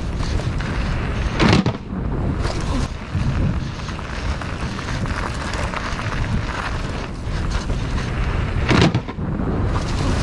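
Wind buffeting an action camera's microphone while a mountain bike rolls fast over asphalt, gravel and grass, its tyres rumbling, with two sharp knocks, about one and a half seconds in and near the end.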